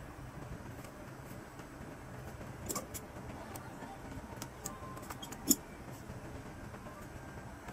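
Small clicks and taps of an awl and pliers as a leather boot's welt is hand-stitched, with a cluster of clicks about three seconds in and the sharpest click about five and a half seconds in, over a steady low background hum.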